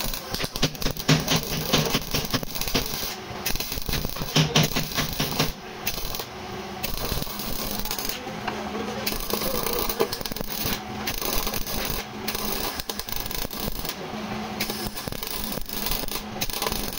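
Workshop clatter: rapid clicking and tapping with scraping and an on-and-off low hum, busiest in the first five seconds or so.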